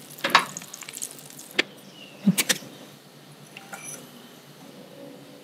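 Sharp clicks and knocks of kitchen utensils at a pan on a gas stove: a quick cluster near the start, a single knock about a second and a half in, and another short cluster a little after two seconds.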